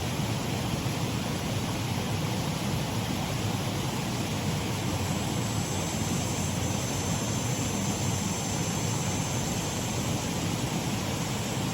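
Shallow waterfall on a mill race stream: water running steadily over the fall. Faint high steady tones join about halfway through.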